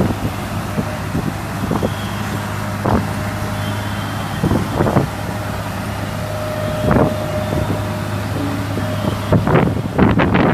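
Road roller engine running steadily, with scattered short knocks and clanks, several close together near the end.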